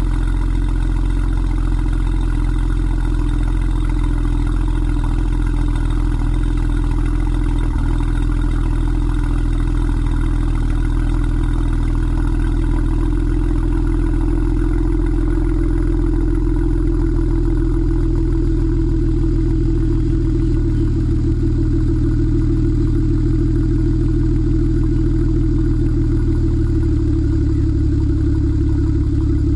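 Exhaust of a BMW 335i's N54 twin-turbo straight-six idling steadily through catless downpipes and a Remus Race axle-back with quad tips, heard at the tailpipes.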